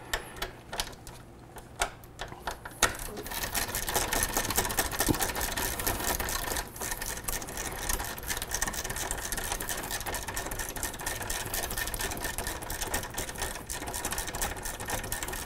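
Socket ratchet clicking while turning a motorcycle brake caliper mounting bolt: a few separate clicks at first, then fast, continuous clicking from about three seconds in.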